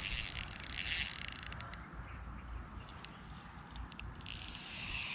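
Spinning fishing reel clicking and whirring in short spells while a hooked fish is fought, with a low rumble of wind underneath.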